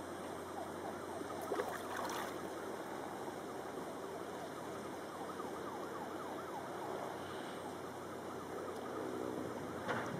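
Steady outdoor ambience filled with many short chirping calls, with brief knocks about two seconds in and again near the end.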